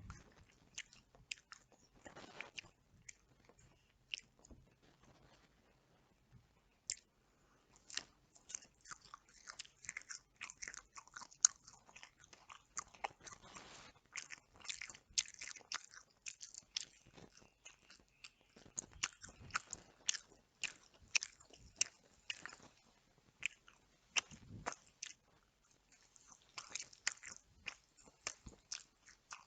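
Close-miked chewing and biting of Nando's chicken: many short, wet mouth clicks and crunches, sparse for the first few seconds and then coming thick and fast.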